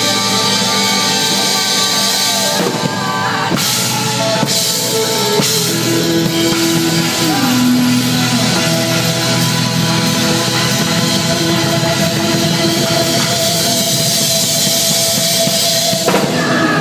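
Live band music driven by a DW drum kit with Zildjian cymbals, played hard and continuously: cymbals, snare and bass drum under held notes from other instruments.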